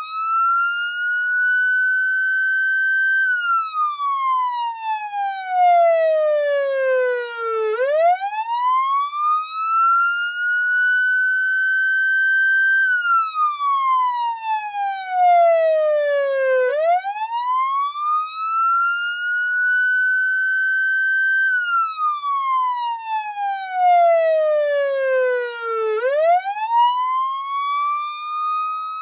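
Police car siren wailing in slow cycles: each one rises over about three seconds, holds briefly at its highest pitch, then falls away over about four seconds, repeating roughly every nine seconds.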